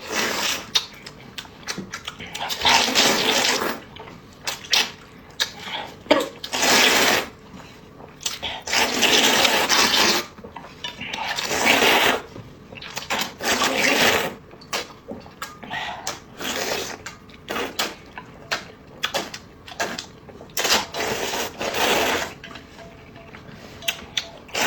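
Eating noises: repeated wet slurps of rice noodles in sesame sauce, each about a second long, with short moist smacks and clicks of chewing between them.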